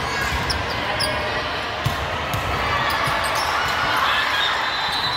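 Volleyball being played on a hardwood gym court: sneakers squeak and one sharp ball hit lands about two seconds in, over a steady background of voices.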